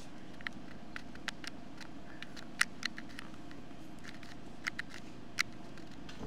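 Steady room hum with scattered small clicks and rustles at irregular intervals, the sharpest about two and a half seconds in and again past five seconds.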